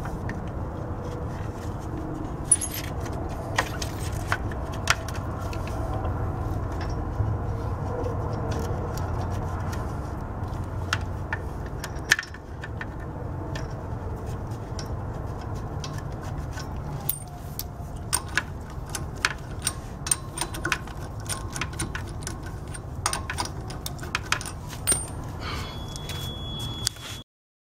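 Scattered sharp metallic clicks and clinks of a car wheel being hung back on the hub and its lug nuts threaded onto the studs by hand, over a steady low rumble. The sound cuts off suddenly near the end.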